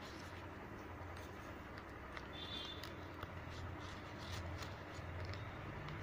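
Faint rustling and crinkling of a red ribbon being folded, gathered and pinned by hand, as small scattered clicks over a steady low hum. A brief high tone sounds about two and a half seconds in.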